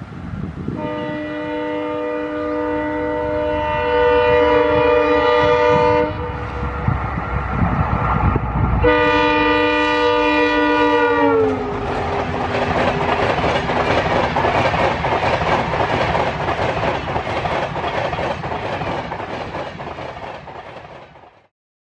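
Indian Railways EMD diesel locomotive sounding two long horn blasts as it approaches. The second blast drops in pitch as the locomotive passes. Then comes the rush and clickety-clack of the passenger coaches going by at speed, which fades away near the end.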